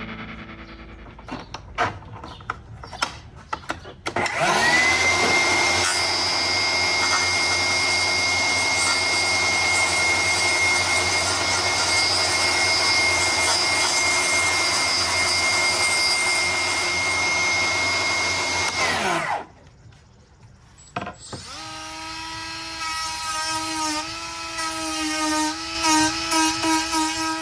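A few sharp knocks, then a power tool spins up and runs steadily at speed for about fifteen seconds before winding down.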